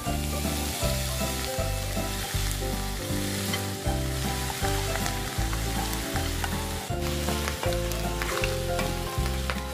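Boiled pork hock and chopped onion sizzling in hot oil in a pan, with meat pieces being added and then stirred with a spatula in the second half, giving a few scraping clicks. Background music with a steady bass line plays underneath.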